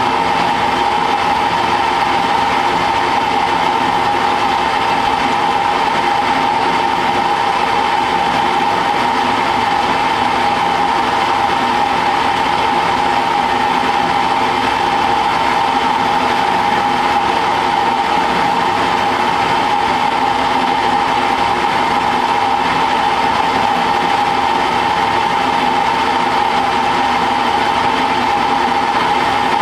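Small manual metal lathe running at a steady speed, its drive making an unchanging whine at one pitch over a mechanical hum.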